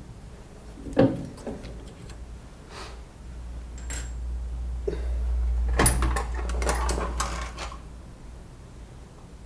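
Metal tools and workpieces being handled on a workbench: a sharp knock about a second in, then a low rumble, with clattering clicks and clinks in the middle.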